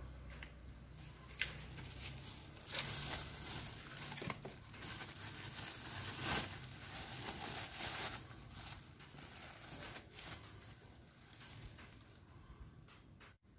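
Thin plastic bag crinkling and rustling in irregular bursts as hands open it, busiest in the middle and thinning out near the end.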